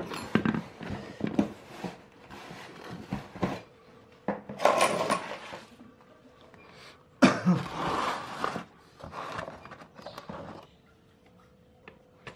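Metal motorcycle clutch parts being handled on a workbench: scattered clicks and knocks, with two longer bursts of noise about four and a half and seven seconds in, the second the loudest, over a faint steady hum.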